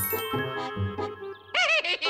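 Cartoon background music with a twinkling chime shimmer at the start, like a sparkle sound effect. Near the end a short wavering, warbling tone.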